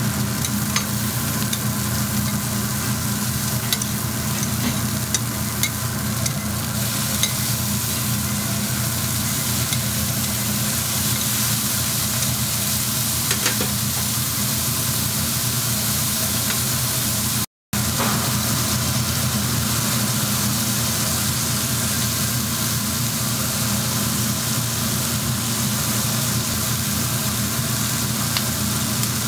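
Beef patties and shrimp sizzling steadily on a hot flat-top griddle, with a few light clicks of a metal spatula in the first several seconds and a steady low hum underneath.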